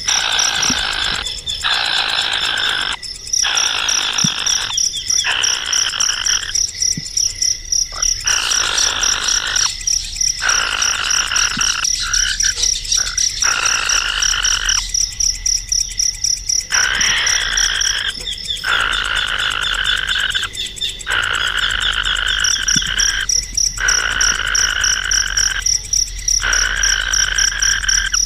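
Natural animal sounds: a steady, high pulsing insect trill, overlaid by loud buzzy calls that repeat every couple of seconds, each lasting one to two seconds with short gaps between.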